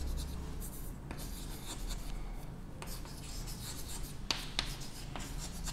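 Chalk scratching on a blackboard as words are handwritten, soft, with a few sharp taps as the chalk strikes the board.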